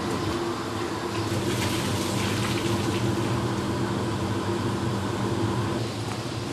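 A machine running with a steady hum of several held tones over a rushing noise, dropping slightly in level near the end.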